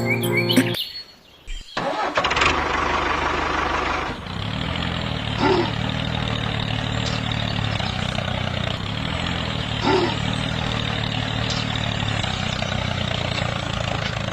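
An engine or motor starting up about two seconds in, then running steadily at idle, with two short blips in its note partway through.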